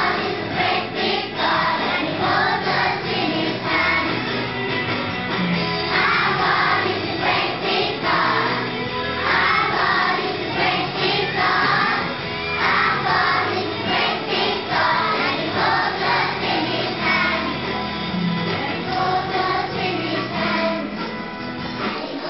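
A choir of young schoolchildren singing a song together, growing quieter near the end.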